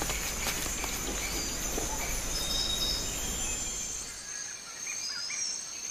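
Tropical rainforest ambience: a steady high-pitched hum over an even hiss, with a few short bird chirps near the end. A low rumble underneath drops away about four seconds in.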